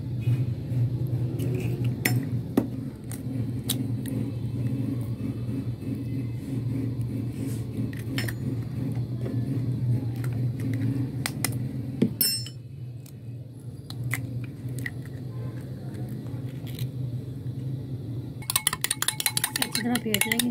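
Eggs cracked into a glass bowl with a few sharp taps, then, near the end, a metal spoon whisking the eggs with rapid clinking against the glass bowl, over a steady low hum.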